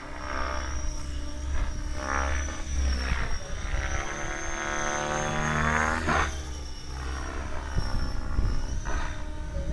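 Radio-controlled helicopter in flight, its motor and rotors giving a steady high whine with a pitch that rises and falls as it manoeuvres. Low wind rumble on the microphone runs underneath.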